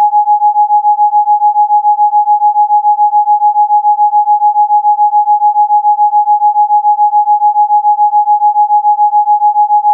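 A steady electronic Rife frequency tone, a single mid-pitched note a little under 1,000 Hz, pulsing rapidly and evenly in loudness. It is played as a frequency meant to relieve chicken pox.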